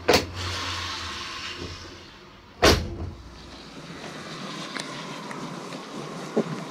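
A van's two plywood-lined rear doors slammed shut one after the other, about two and a half seconds apart. This is followed by the steady noise of the vehicle driving along a wet road.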